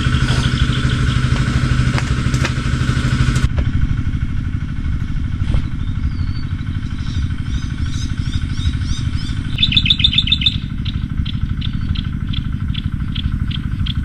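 A small engine running steadily, with birds chirping over it in the second half, ending in a regular chirp about twice a second.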